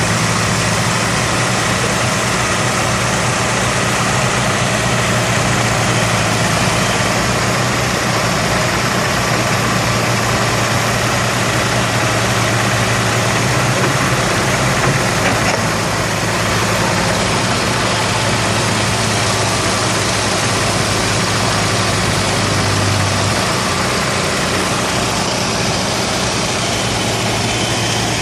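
Heavy diesel machinery running steadily: a 20-tonne Hitachi excavator's engine working while it feeds a processing plant, a constant low engine hum under a dense mechanical rumble.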